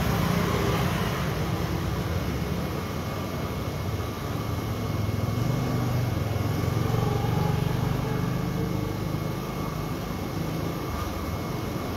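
Passing street traffic: a low engine rumble that swells near the start and again around the middle, easing off in between.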